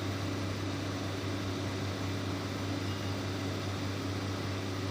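Hydraulic excavator's diesel engine running at a steady speed, a constant low drone that does not rise or fall.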